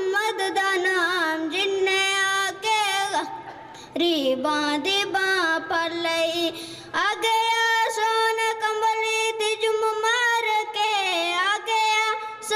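A boy's high voice singing a Punjabi naat unaccompanied, in long ornamented lines that bend up and down in pitch. The singing softens briefly about three seconds in and settles into a long held line in the second half.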